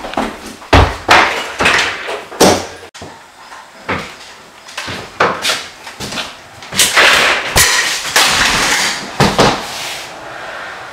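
A run of loud bangs, knocks and crashes, a dozen or so sharp hits with a few longer crashing sounds in the second half, echoing in a small bare room.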